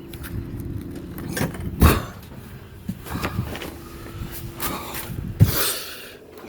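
Mallet tapping a mahogany plug down into a wooden deck hole: irregular sharp knocks, a few seconds apart, the loudest about two seconds in and another near the end.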